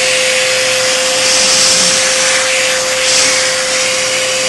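Vacuum cleaner running through its hose and brush attachment: a loud, steady rush of air with a constant motor whine held at one pitch.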